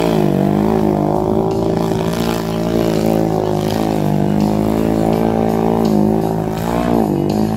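750 cc ATV engine with an HMF aftermarket exhaust pipe, revving hard under load through a mud bog, its pitch dipping and climbing back several times as it bogs and picks up again.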